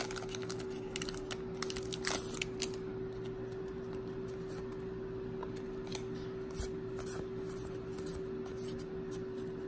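Handling of a foil trading-card booster pack and its cards: a quick run of crinkling, sliding and sharp clicking over the first three seconds as the cards come out of the wrapper, then only an occasional faint click over a steady low hum.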